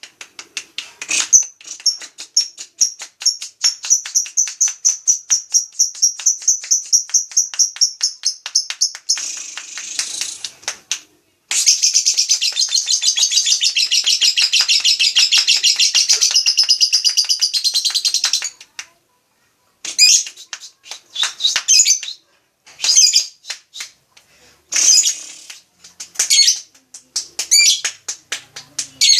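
Lovebird chattering: a fast run of sharp high chirps, about five a second, then a dense unbroken trill lasting about seven seconds, then short bursts of chirps.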